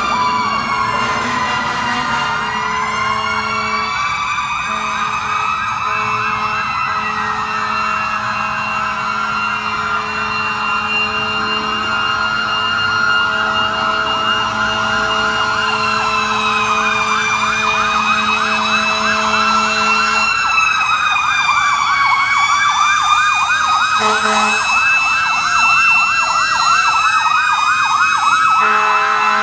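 Several fire truck sirens sounding at once, their slow wails rising and falling out of step with each other. A fast yelp joins in about halfway through. A steady low tone runs under them and drops out about twenty seconds in.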